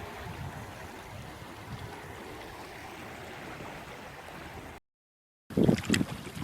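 Steady, even hiss of flowing river water with no distinct splashes. About five seconds in the sound cuts out completely for a moment, then resumes with loud, irregular low rumbling gusts of wind buffeting the microphone.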